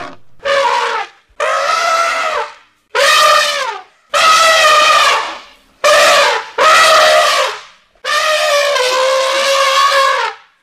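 African elephant trumpeting: a series of about seven loud calls, each lasting from half a second to about two seconds, several dipping in pitch at the end.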